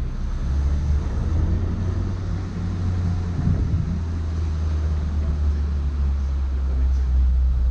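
Suzuki Samurai's engine running steadily as the jeep drives along, a low rumble heard from inside the cab, with some wind noise.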